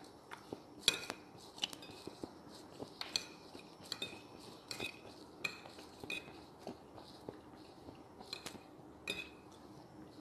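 Metal fork and spoon scraping and clinking against a ceramic plate while mixing rice, with irregular sharp clinks about one or two a second, each ringing briefly.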